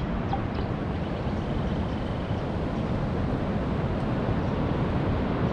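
Steady rush of ocean surf breaking on the beach, with wind rumbling on the microphone.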